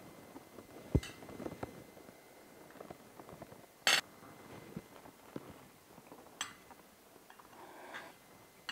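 Cutlery clinking and scraping against china plates during a meal: scattered small clicks, with a sharper clink about four seconds in.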